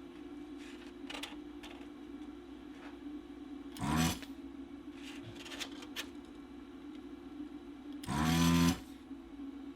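Desoldering station humming, with light clicks of the tip on the board, and its vacuum pump buzzing twice, briefly about four seconds in and for over half a second near eight seconds in, as solder is sucked off a capacitor's leads to remove it from the circuit board.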